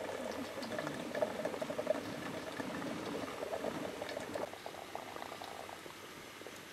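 Hot water running from a samovar's tap into an aluminium kettle, splashing and gurgling in the metal pot. It thins out about four and a half seconds in.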